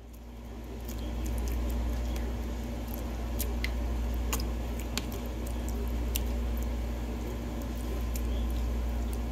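A hand massaging tenderized steak pieces in buttermilk, making wet squishing sounds with small scattered clicks. A steady low hum runs underneath.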